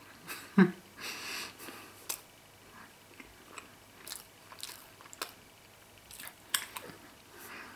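A person chewing a mouthful of Emmentaler cheese: irregular wet mouth smacks and clicks, with a single louder sound about half a second in.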